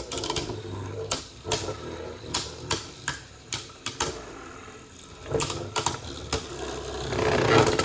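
Spinning Beyblade tops clacking against each other and the plastic stadium: irregular sharp plastic clicks, a couple a second, growing denser and louder about seven seconds in.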